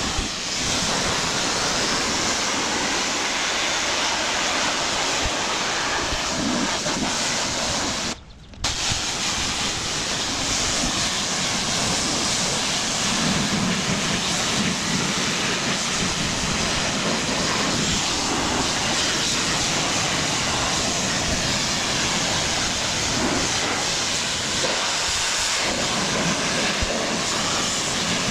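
Stihl RB 400 gas pressure washer running while its wand sprays water up onto a house's soffit: a steady hiss of spray over the engine. The sound breaks off briefly about eight seconds in.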